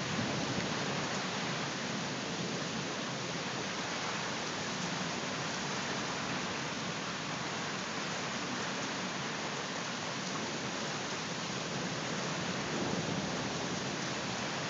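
Heavy rain pouring steadily in a storm, an even downpour hiss.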